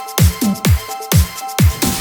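Electronic dance music with a steady kick drum at about two beats a second and short synth notes.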